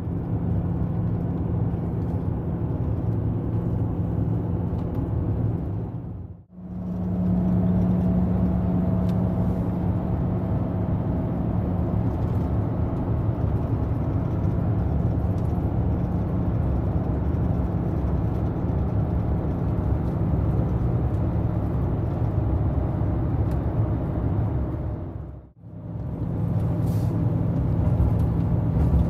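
Mercedes-Benz Actros truck cruising on the highway, heard from inside the cab: a steady engine drone with road and wind noise. The sound drops away briefly twice, about six seconds in and again near the end, where separate clips are joined.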